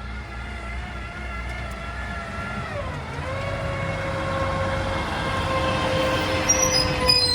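Garbage truck running, with a whining tone that drops in pitch about three seconds in, then holds steady as the sound grows louder.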